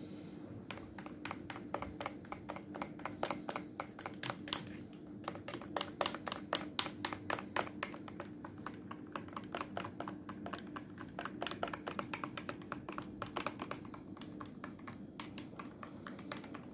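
Faint, irregular clicking in quick runs of several clicks a second, over a steady low hum.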